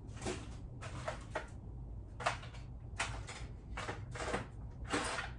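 Small metal tools clicking and rattling as a toolbox is rummaged through by hand, a string of short irregular clicks over a low steady hum.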